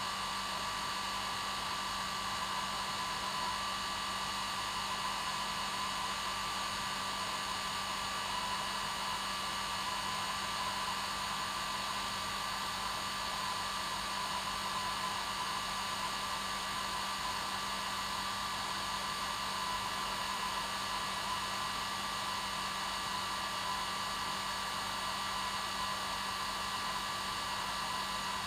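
Hair dryer running continuously on its normal setting, a steady whooshing rush of air with an unchanging motor whine.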